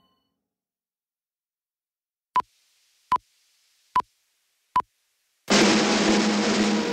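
Four short electronic beeps at one steady pitch, evenly spaced about 0.8 s apart, after a silence. About five and a half seconds in, loud dramatic music with drums comes in suddenly and carries on.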